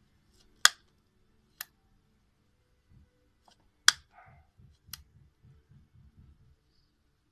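Blythe doll's eye mechanism clicking as the eyes are worked through closed and changed eye chips: four sharp clicks, the first and third loudest.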